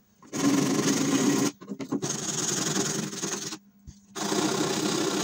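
A small piece of sandpaper rubbed by hand over the bare wood of a classical guitar's bridge seat, in three bouts of fast back-and-forth scrubbing with short pauses between. It is scuffing off old glue to prepare the seat for regluing the bridge.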